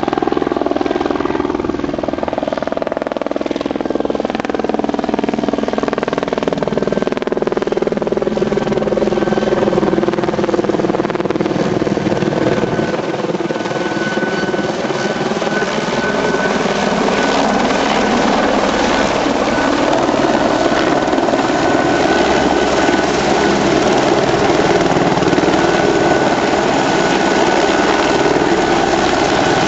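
Helicopter flying close by, its rotor and engine noise loud and steady; the pitch of the rotor drone slowly falls and later rises again as the aircraft moves.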